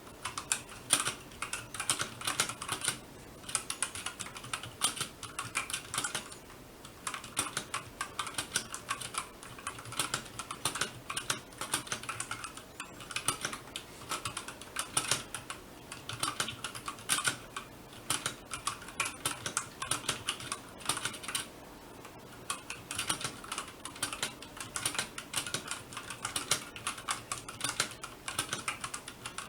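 Typing on an RK61 mechanical keyboard with tactile brown switches: a fast, continuous run of key clicks and clacks, with short pauses every several seconds.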